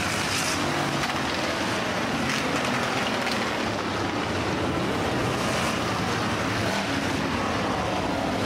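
Hobby stock race car engines running, a continuous mechanical drone with a steady wash of noise over it.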